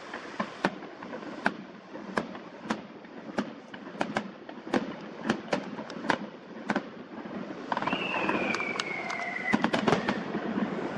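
Distant aerial fireworks bursting: a run of sharp cracks and bangs, about two a second. In the last few seconds a train passes, with rising rumble and a high whine that slides slowly down in pitch, while a few more cracks come through it.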